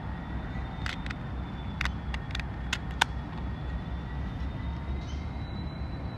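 Diesel freight locomotives running as they draw away: a steady low engine rumble with a faint high whine that rises slowly in pitch. Several sharp clicks sound in the first few seconds.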